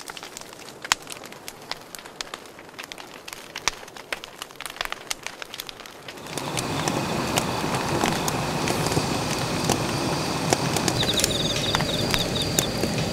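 Wood fire crackling with sparse pops. About six seconds in, a louder steady hiss comes in and holds, with birds chirping and one quick trill over it.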